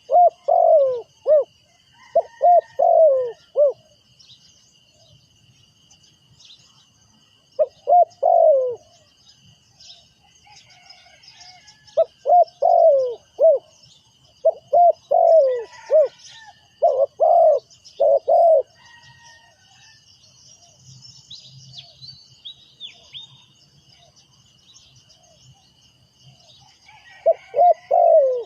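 Spotted dove cooing: a decoy bird calling to lure wild doves. Its song comes in phrases of several quick notes with long silent gaps between them, about six phrases in all.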